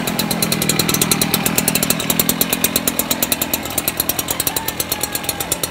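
STIHL backpack mist blower's two-stroke engine running steadily with its blower fan, with a fast, even pulsing, as it blows spray mist.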